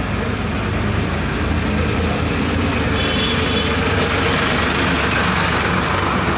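A vehicle engine running steadily: a constant low hum under a broad, even noise.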